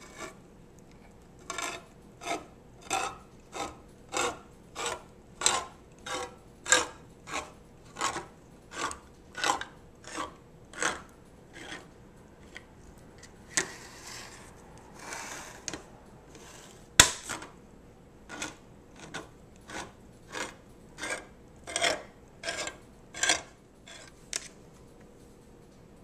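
Handheld manual can opener cranked around the lid of a steel food can, its gear clicking about one and a half times a second. Midway the clicking stops for a few seconds of scraping, then one sharp snap, and the cranking clicks start again.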